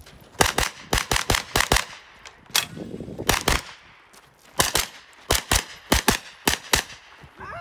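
SIG MPX 9mm pistol-caliber carbine firing a string of about eighteen shots, mostly in quick pairs with short pauses between them as the shooter moves between targets.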